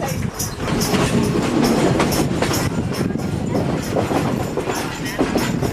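Train running along the track: a steady rumble with a rapid run of sharp clicks from the wheels and carriages.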